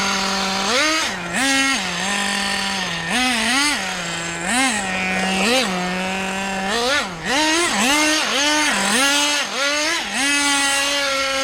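Team Associated Nitro TC3 1/10-scale RC car's small nitro engine being driven, revving up and dropping back to idle over and over in quick throttle blips, then holding a higher steady pitch for a couple of seconds near the end.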